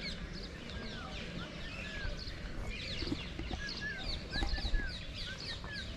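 Many small birds chirping together: a dense run of rapid, short, high falling chirps, with occasional short whistled calls lower down, over a steady low rumble. There is a low bump about three quarters of the way in.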